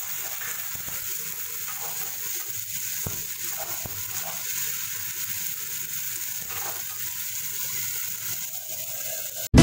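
Chopped vegetables and tomato puree sizzling in a pan, a steady frying hiss with a few light knocks of stirring. Guitar music cuts in abruptly at the very end.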